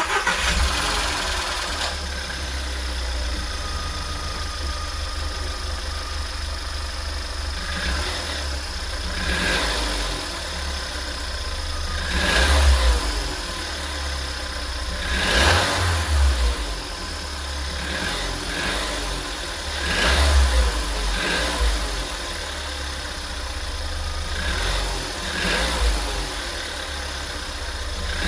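Volkswagen 1.4 TSI CAXA turbocharged four-cylinder petrol engine idling, revved briefly about five or six times, each rev rising and falling back to idle. The owner hears a noise from it that he finds odd, cause unknown.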